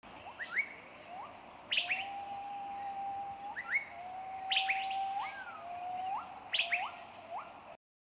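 Swallow calling: a run of short rising chirps and a few long, level whistled notes, with quicker high chirps mixed in. It cuts off abruptly near the end.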